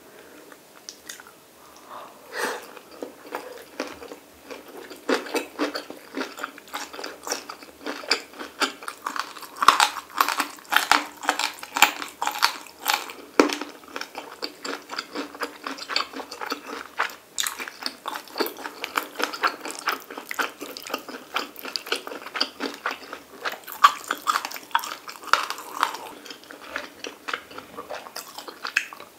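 A person chewing mouthfuls of stir-fried kimchi and sliced pork belly: a steady, irregular run of short crunchy clicks and mouth noises.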